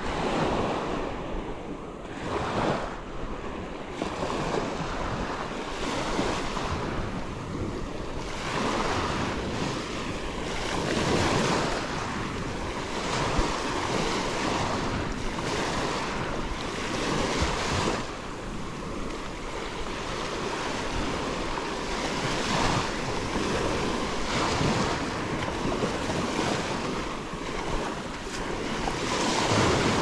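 Gulf of Mexico surf: waves breaking and washing up the sand beach one after another, a rush of noise that swells and eases every few seconds.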